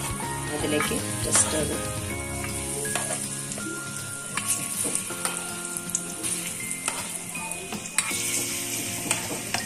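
Banana slices sizzling as they fry in hot oil in a non-stick pan, with a few sharp clicks of a spoon against the pan as more pieces go in and are moved around.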